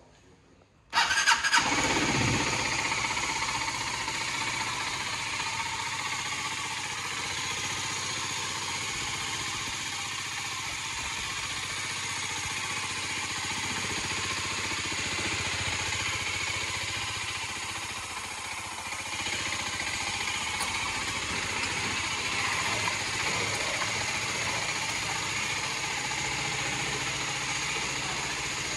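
Aprilia Tuono 125's single-cylinder four-stroke engine starting suddenly about a second in, its revs flaring briefly and settling, then idling steadily.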